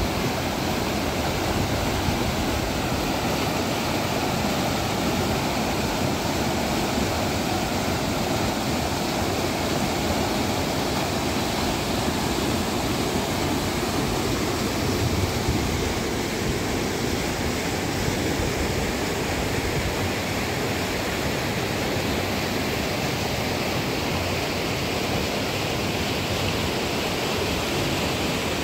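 River water running fast and steadily over a cascade.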